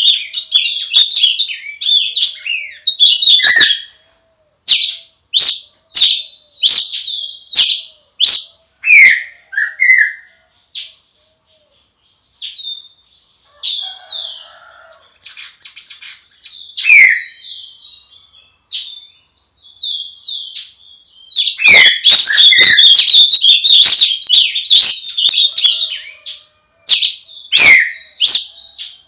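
Birds chirping and calling, with quick sweeping high chirps. They come in dense, loud flurries at the start and again from about 21 to 26 seconds in, with sparser calls and short pauses in between.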